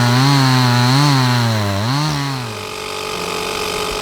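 Chainsaw engine running at high revs, its pitch rising and dipping several times. It falls back to a lower, quieter idle about two and a half seconds in.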